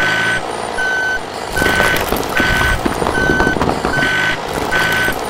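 Truck reversing beeper sounding repeatedly, a beep about every 0.8 s. From about a second and a half in, a clatter of small bricks sliding and tumbling out of the dump truck's tipping bed joins it.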